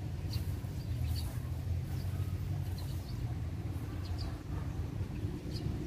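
Low rumbling outdoor background with short high bird chirps scattered through, about one every second.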